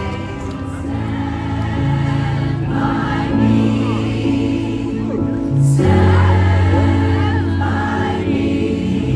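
Choir singing in harmony, holding long chords that change every second or two and swell slightly about six seconds in.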